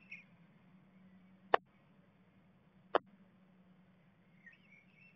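Two sharp taps, about a second and a half apart, as a blue tit moves about on its nest inside a wooden nest box, over a faint steady hum, with faint high chirps near the end.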